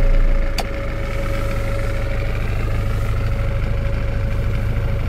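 GAZ Valdai truck's Cummins ISF 3.8 four-cylinder turbodiesel idling steadily at about 1,000 rpm, heard from inside the cab. A single sharp click of a dashboard switch about half a second in.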